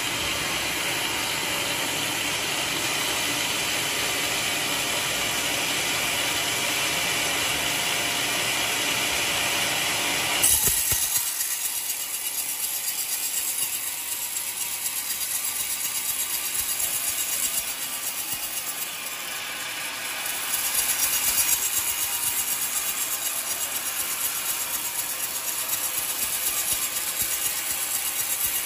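Homemade band sawmill running and sawing lengthwise through an old coconut log, a steady rasping hiss. About ten seconds in, a sharp click marks an abrupt change, after which the sound is thinner and higher.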